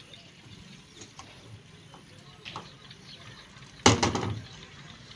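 A few light knocks, then one loud metallic clank about four seconds in, from hands working on the parts of a stopped old 22 hp diesel engine.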